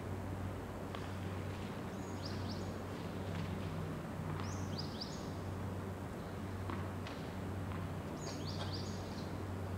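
Steady low background hum with small birds chirping: three short bursts of two or three high, quickly falling chirps. A few faint knocks in between.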